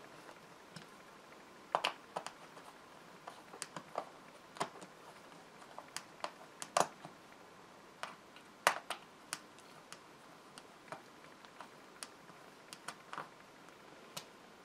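Magnetic-tip screwdriver tightening screws into a metal Lazy Susan bearing plate set in a wooden base: sharp, irregular clicks and taps as the tip seats in the screw heads and turns, about one to three a second with some close pairs.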